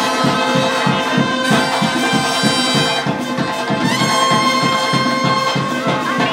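Marching band brass, trumpets and trombones, playing a held-note tune over a steady, quick beat.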